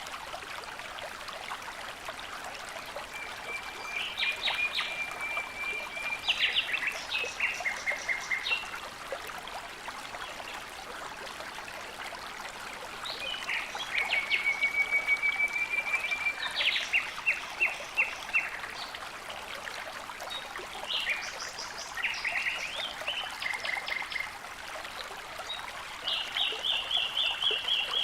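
Running water flowing steadily, with a songbird singing short phrases every few seconds, each a trill followed by a quick run of repeated notes.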